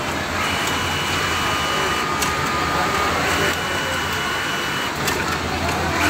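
JACK electronic buttonhole sewing machine stitching buttonholes in short cycles: two runs of about a second and a half each with a steady high whine, pausing between them.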